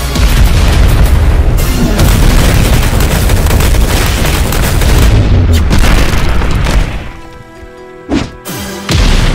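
Animated punch-barrage sound effects: a dense, continuous run of overlapping booming impacts over background music. The hits drop out about seven seconds in, leaving the music, and start again near the end.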